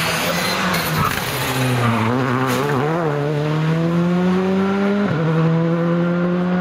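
Rally car's engine accelerating hard, its pitch climbing steadily. About five seconds in the pitch drops suddenly at an upshift and then climbs again.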